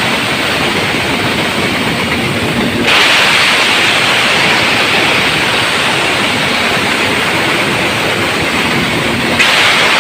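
Wood chipper running: a loud, steady rushing noise that gets louder about three seconds in and again just before the end.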